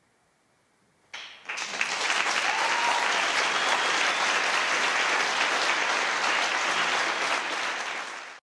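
Audience applause breaking out about a second in, after a moment of near silence, then holding steady until it cuts off abruptly.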